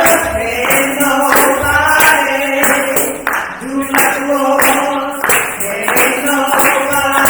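Voices singing a gospel praise song a cappella, with held notes, over a steady beat of hand clapping.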